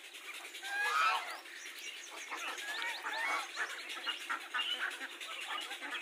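Domestic ducks and geese calling from a flock, many overlapping short calls, loudest about a second in.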